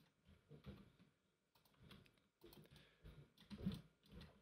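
Near silence broken by faint, scattered clicks and taps on a computer keyboard and mouse, with a slightly louder cluster about three and a half seconds in.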